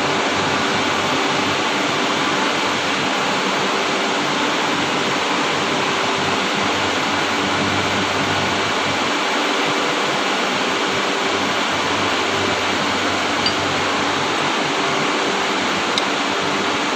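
Steady rushing machine noise with a faint low hum, unchanged throughout; a couple of light clicks near the end.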